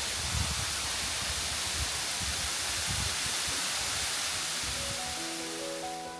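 Waterfall rushing: a steady, even roar of falling water with uneven low rumbling underneath, easing slightly toward the end. Quiet piano music fades in over it near the end.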